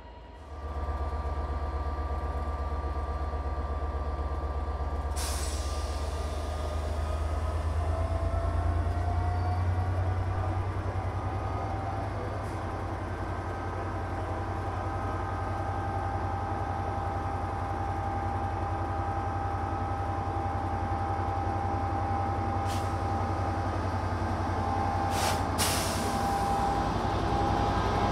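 Class 67 diesel-electric locomotive 67021, with its two-stroke V12, running with a steady low drone, its pitch rising as it powers up about eight seconds in. Short sharp hisses of air come once early and several times near the end.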